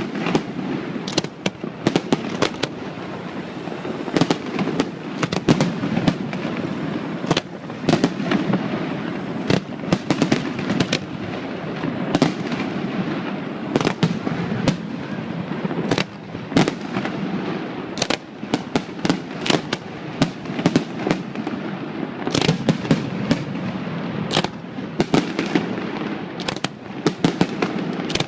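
Fireworks display bursting: a dense string of sharp bangs, often several a second, over a continuous rumble of booms.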